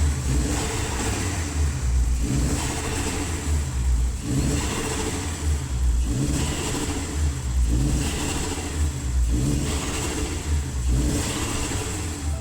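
Audi A3 1.8T 20-valve turbocharged four-cylinder engine being revved up and let back down, over and over, about seven times at an even pace.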